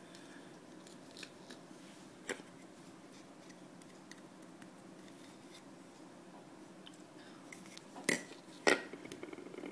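Small handling noises from a wire-spring method feeder, hooks and a plastic line spool being picked up and set down on a tabletop: faint scattered clicks, a sharper click about two seconds in, and two louder metallic clicks near the end.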